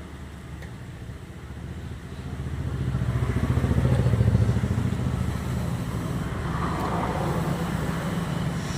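A small engine running, a low pulsing rumble that grows louder over a couple of seconds, peaks about four seconds in, then holds steady.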